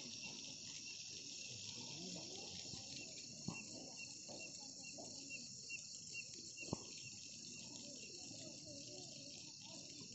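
Night insects, crickets among them, calling steadily: a continuous high trill with a regular chirp about three times a second. Two soft knocks, the second a little past the middle.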